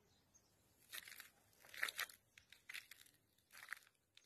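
Footsteps crunching on debris-strewn ground: about four faint, short crunches roughly a second apart.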